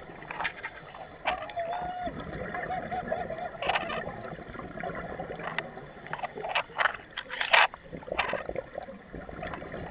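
Underwater sound of a scuba dive: gurgling bursts of exhaled regulator bubbles, the loudest about three-quarters of the way through. About a second in, a diver's muffled, wavering cry through the regulator lasts about two seconds.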